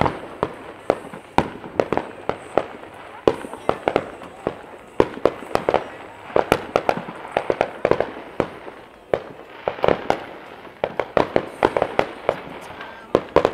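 Fireworks going off in a rapid, irregular string of sharp bangs and pops, several a second.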